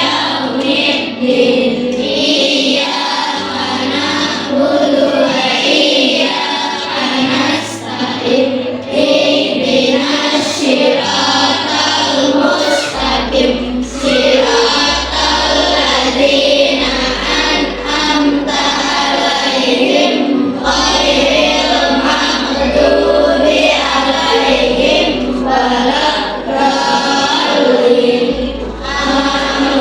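A song sung by a group of voices over instrumental backing, with a deep bass line coming in about thirteen seconds in.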